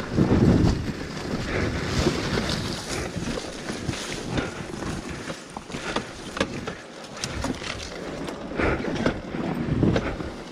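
Dirt bike working slowly down a steep forest single track: the engine running at low throttle under wind noise on the helmet microphone, with brush swishing against the bike and a scatter of clicks and knocks from rocks and branches. It surges louder about a second in and again near the end.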